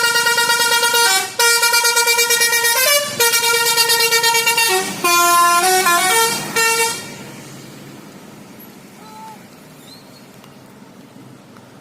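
A bus's basuri (telolet) musical horn plays a loud tooting melody of held notes that step up and down in pitch, with brief breaks between phrases. It stops about seven seconds in.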